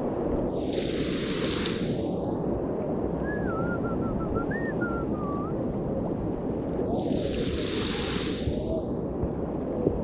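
Fast river water rushing around a whitewater kayak, with wind on the microphone. Water splashes up around the boat twice, about a second in and again near the end, and a faint wavering whistle sounds in between.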